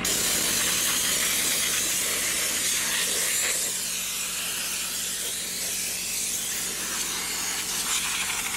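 Compressed air hissing steadily from a blow gun on an air hose, blasting sand out of a dirt bike's chain and sprocket area.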